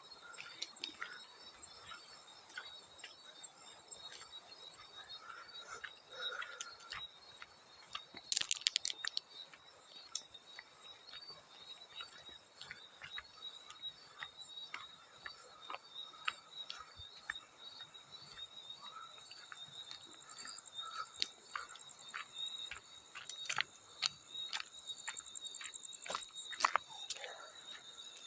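Field crickets chirping in a steady high trill, with scattered small water drips and splashes. A louder cluster of splashes comes about eight seconds in and another near the end.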